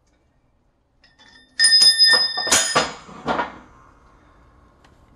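Heavy steel press adapter plate clanking and ringing like a bell as it is lifted off a freshly pressed differential carrier bearing and set down on the shop press: a quick run of five or six metal strikes starting about a second and a half in, then fading.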